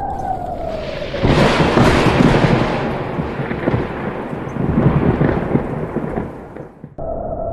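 Thunder rumbling and crackling, starting about a second in and cutting off abruptly near the end. A steady electronic drone plays before and after it.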